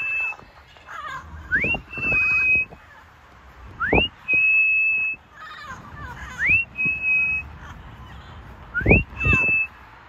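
A person whistling a recall call for a lost African grey parrot: a rising swoop that levels into a held high note, repeated four times about every two and a half seconds. A short low thump comes with some of the whistles.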